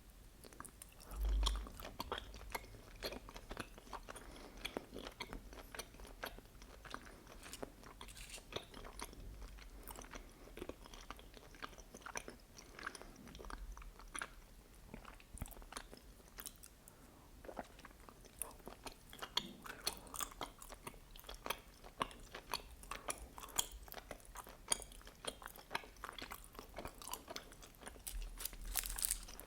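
Close-miked chewing and biting of soft mochi filled with red bean paste: a continuous run of wet, sticky mouth clicks and smacks. A low thump about a second in.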